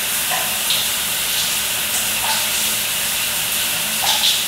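Shower running: a steady hiss of water spraying onto a tiled shower floor.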